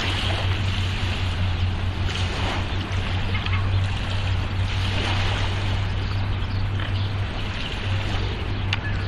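A steady noise bed with a constant low hum, with a few faint, brief bird chirps over it.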